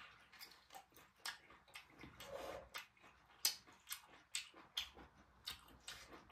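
Close-miked eating sounds: chewing and crunching, a string of irregular sharp mouth clicks, about two a second.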